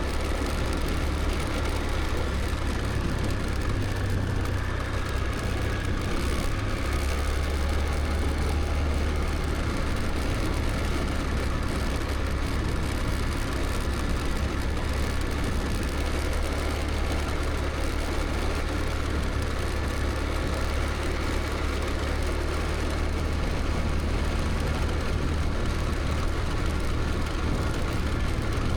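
Scooter riding along: its small engine runs steadily under a constant rumble of road and wind noise.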